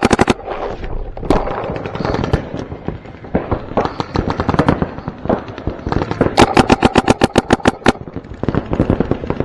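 Paintball markers firing in rapid strings of shots, about a dozen a second: a loud close burst ends just after the start and another runs from about six to eight seconds in, with quieter scattered shots from other players in between.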